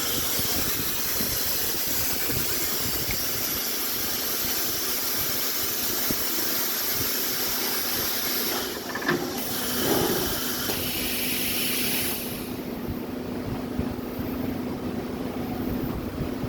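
Hot plate welding machine running with a steady hiss over a low hum; the hiss drops away sharply about twelve seconds in, leaving the hum.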